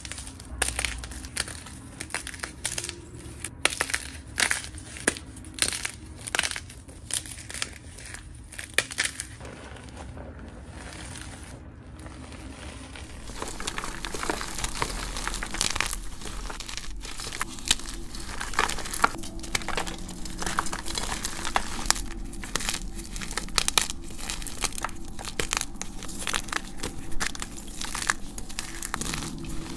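Hands crushing and crumbling blocks of dyed gym chalk: dry crunches and crackles, one after another. About thirteen seconds in, the crunching turns denser and more continuous.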